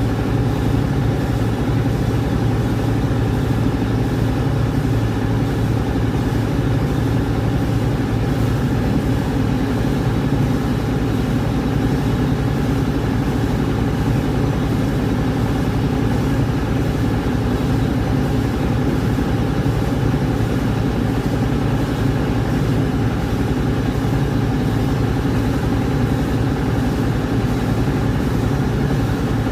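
Engine-driven rice milling machine (huller) running steadily, a constant mechanical hum that does not change.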